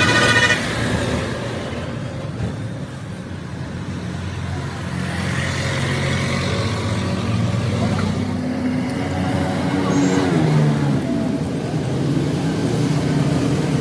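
Motor vehicle engines running, with a rise and fall in engine pitch partway through, like a vehicle revving or passing, over a low steady hum.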